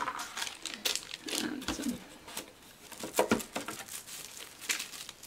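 Plastic shrink-wrap crinkling and rustling as wrapped cardboard game components are handled and pulled from a box insert, with a couple of light knocks.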